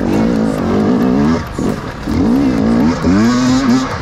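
Enduro dirt bike engine revving, its pitch rising and falling again and again as the throttle is worked.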